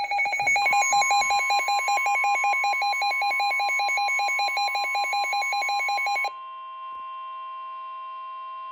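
Emergency Alert System warning tones: a rapid, evenly pulsing electronic beep over a steady tone for about six seconds, then an abrupt change to a quieter steady alarm tone.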